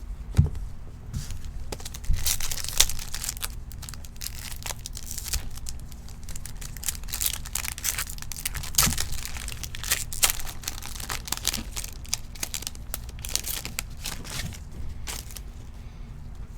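Foil wrapper of a Topps Stadium Club baseball card pack being torn open and crinkled, with many irregular crackles and small snaps.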